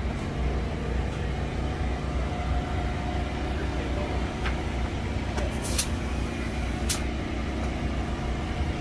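Steady low drone of an idling engine, with a few short sharp hisses in the second half.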